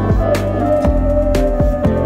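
Background music with a light beat about once a second.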